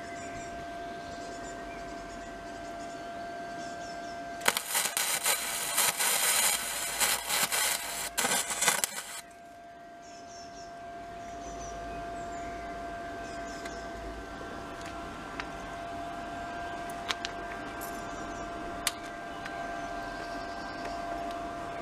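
Flux-core arc welding: a loud crackling arc for about four and a half seconds, starting about four seconds in, over a steady hum. A few light clicks follow later.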